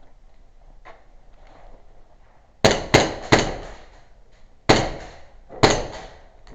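Five sharp cracks of airsoft gunfire, each followed by a short ringing echo. Three come in quick succession about two and a half seconds in, and two more follow a second or two later.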